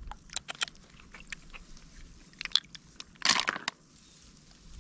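Hands groping through shallow, muddy rice-paddy water for snails: scattered small clicks and crackles, with a louder noisy rustle of about half a second a little past three seconds in.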